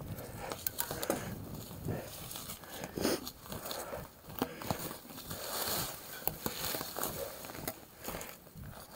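Mountain bike riding over rough dirt singletrack: tyres crunching on the loose trail surface, with many irregular clicks and rattles from the bike.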